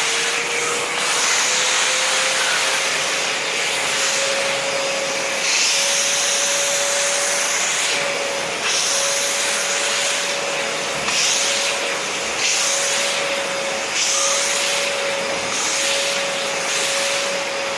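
Steam-and-vacuum cleaner running with suction and steam together: the vacuum motor whine climbs in pitch over the first few seconds and then holds steady, while a loud hiss swells in repeated surges every second or two as steam is pressed out and the nozzle works the surface.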